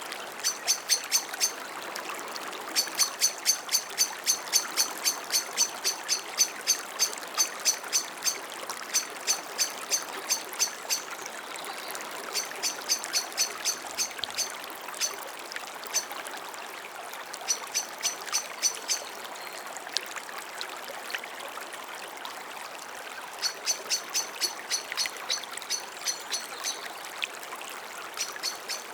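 Water flowing down a small stream, a steady rushing trickle. Over it come runs of short, high chirps repeated about three times a second, each run lasting a few seconds.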